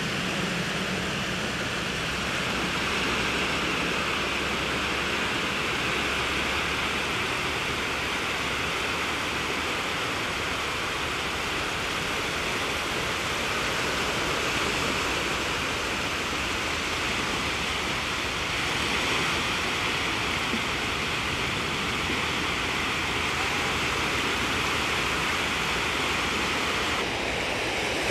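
Steady rush of shallow sea water washing over sand at the water's edge.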